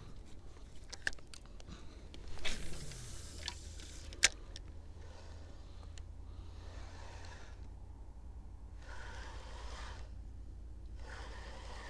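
Spinning reel being cranked in spells of a second or two, retrieving a lure. In the first half there are a few sharp clicks and a louder noisy burst, and a low steady rumble runs underneath.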